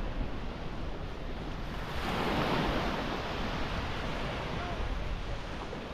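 Small Gulf surf washing onto a sandy beach, mixed with wind buffeting the microphone; the wash swells louder about two seconds in.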